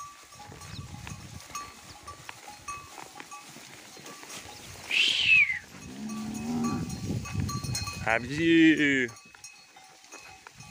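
A herd of zebu cattle being driven along on foot. A short, high call falling in pitch comes about five seconds in, and a cow moos once for about a second about eight seconds in.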